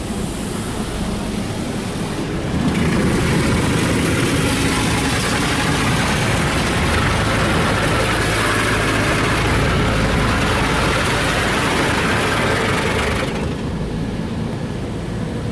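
Rinse spray from a Ryko Softgloss Maxx automatic car wash pouring over the vehicle, heard from inside the cab as a steady rush of water. It gets louder about two and a half seconds in and drops back about two seconds before the end, over a low steady hum.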